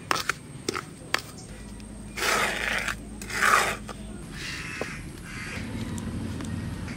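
Flat metal spatula scraping through hot sand in a pan while jackfruit seeds are sand-roasted. There are a few small clicks in the first second, then two long scraping strokes about a second apart.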